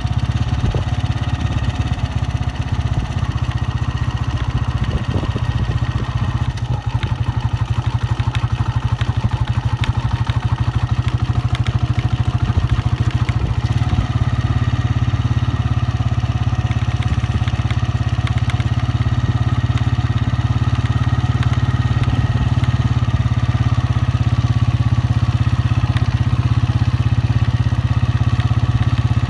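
Honda 125's single-cylinder four-stroke motorcycle engine running steadily, with a rapid, even beat.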